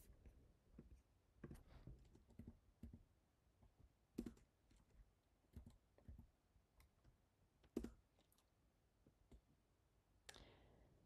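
Faint, irregular keystrokes on a computer keyboard as a terminal command is typed, with two louder key presses about four and eight seconds in.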